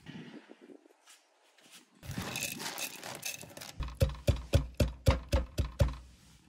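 Wooden pestle pounding peanuts in a wooden mortar: a run of about eight dull, even thuds, roughly four a second, starting in the second half and stopping shortly before the end. Softer, irregular knocking comes before them.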